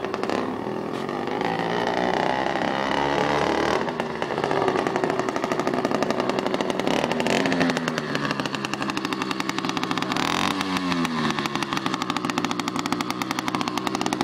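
80cc two-stroke motorized-bicycle engine running with its exhaust opened up, rapid and rasping, with the revs changing. Around ten seconds in, the pitch dips and then climbs again.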